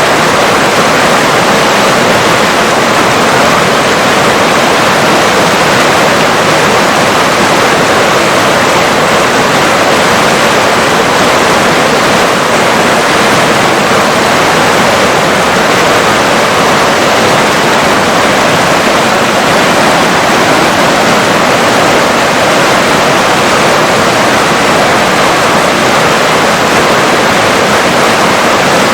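River water rushing and splashing in a steady, even wash of noise with no breaks.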